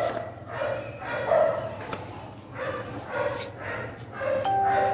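A dog barking over and over, a short bark roughly every second.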